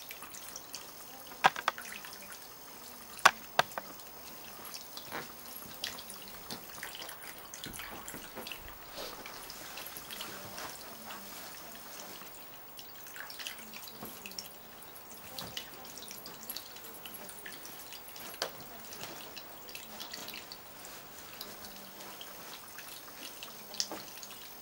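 Water trickling and dripping in a small tabletop fountain, a faint steady patter of drops, with a few sharper clicks in the first few seconds.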